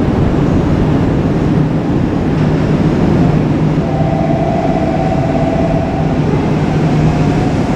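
A train passing close by: a steady, loud rumble with a low hum, and a brief higher warbling tone about four seconds in that lasts about two seconds.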